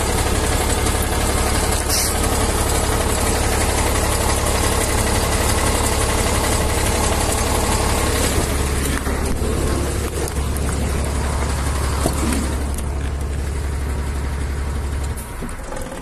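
Heavy truck's diesel engine running at idle close by, a steady low hum under a broad rushing noise. The hum cuts off about a second before the end and the sound falls away.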